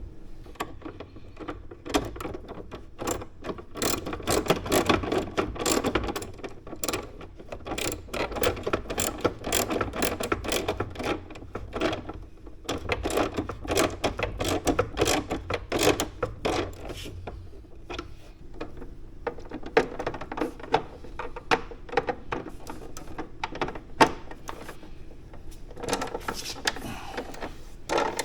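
Ratchet clicking in quick runs with short pauses as fasteners are driven in to secure a motorcycle's lower fairing cover.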